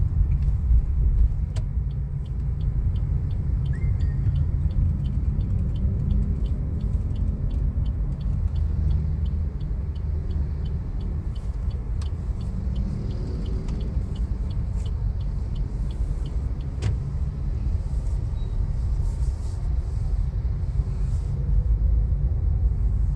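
Car driving, with steady low road and engine rumble heard from inside the cabin. For most of the time a turn-signal indicator ticks at an even rate, a few ticks a second, and stops about two-thirds of the way through, around a single sharper click.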